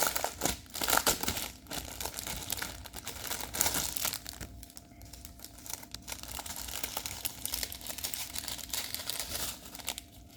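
Small plastic bags of diamond painting drills crinkling as they are handled, a dense run of crackles that thins out after about four seconds.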